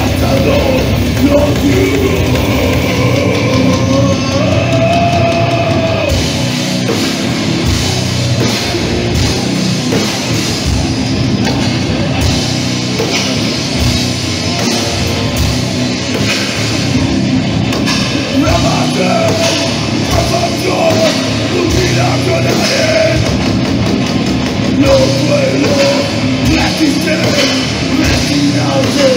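Heavy metal band playing live: distorted electric guitars and a drum kit, loud and continuous, changing to a new riff with denser drumming about six seconds in.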